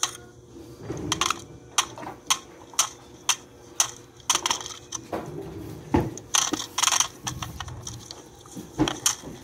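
A run of sharp clicks and knocks, roughly two a second and unevenly spaced.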